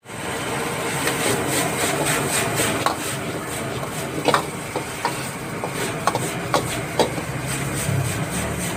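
Metal spatula scraping and clacking against a wok as rice vermicelli is stir-fried over a high gas flame, with a steady rush of burner and sizzle underneath. Several sharp clacks stand out in the middle.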